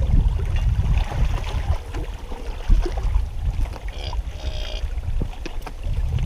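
Wind buffeting the microphone: a heavy low rumble that rises and falls, with a few faint clicks.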